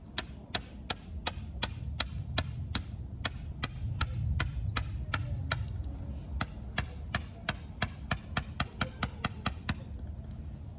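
Repeated hammer blows, struck steadily about three times a second. After a short break about six seconds in they resume faster, around four a second, and stop about ten seconds in.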